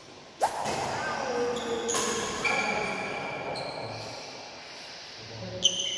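Badminton rackets striking a shuttlecock during a rally, three sharp hits: about half a second in, about two seconds in, and near the end. High ringing tones linger after the hits.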